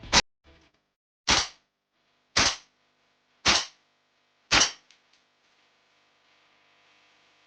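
Umarex HK G3 gas blowback airsoft rifle firing five single shots about a second apart, each a sharp crack of gas and bolt blowback, with a couple of faint clicks after the last.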